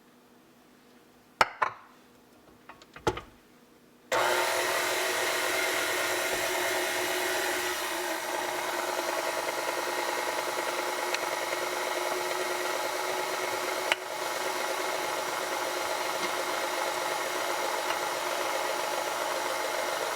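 Two short knocks, then an electric mixer switches on about four seconds in and runs steadily, beating flour into banana muffin batter, until it cuts off at the end.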